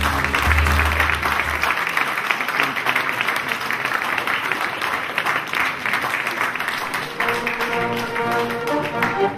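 Audience applauding over background music. Near the end the music gives way to an orchestral piece with strings.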